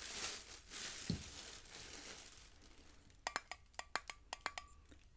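Packaging crinkling and rustling for the first couple of seconds, with a soft thump about a second in. This is followed about three seconds in by a quick run of sharp fingernail taps that clink on a hard object.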